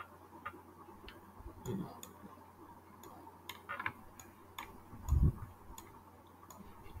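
Faint quick ticking, a few ticks a second, with a soft low thump about five seconds in.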